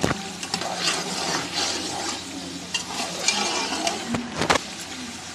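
Boiled mutton pieces being stirred in hot ghee and masala in a metal pot: a steady sizzling with wet scraping of the spoon, and sharp knocks of the spoon against the pot near the start and about four and a half seconds in.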